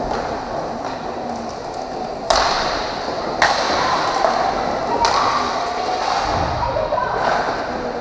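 Roller hockey play: three sharp clacks of stick on ball, echoing in a large sports hall.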